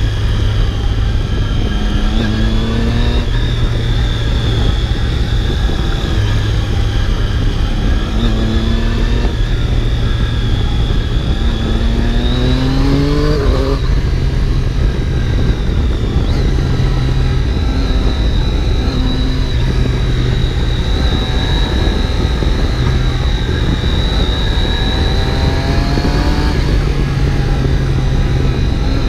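Triumph Daytona 675's three-cylinder engine heard from on board, rising in pitch several times as the bike accelerates, with steadier stretches between. A steady low rush of wind noise lies under it.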